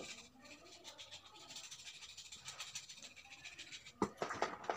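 Wet slate stone being rubbed and scraped: a steady soft scraping, then from about four seconds in a quick run of sharp, crunchy scrapes as a knife blade is drawn across the stone, flaking off crumbs.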